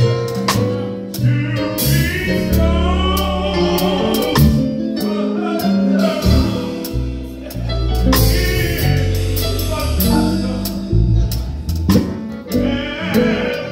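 Live gospel band playing: singing over a drum kit, guitars and keyboard, with steady drum strikes running through.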